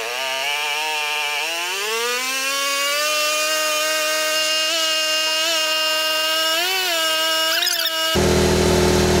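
Tao Tao Pony 50's GY6 139QMB 50cc four-stroke single-cylinder scooter engine being revved up from idle. The pitch climbs smoothly over a second or two, then is held steady at about 5,000 rpm with slight wavers. Near the end the high steady note stops abruptly.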